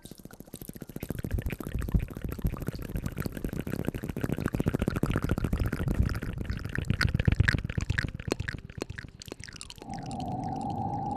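ASMR hair-washing sounds: dense wet crackling and rustling close to the microphone. Near the end this stops and a steady, drawn-out tone begins.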